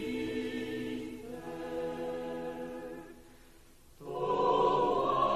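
Choir singing a hymn in long held chords, the harmony shifting a little over a second in. It fades almost away around three seconds in, then comes back louder with a new phrase about four seconds in.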